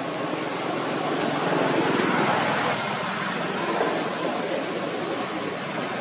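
Steady outdoor background noise, like distant road traffic, swelling louder for a second or so about two seconds in.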